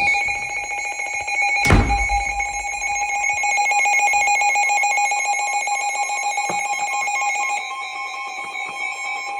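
Emergency weather alert attention tone heralding a tornado warning: a loud, steady electronic alarm pulsing very rapidly on a few fixed pitches. A single knock sounds about two seconds in.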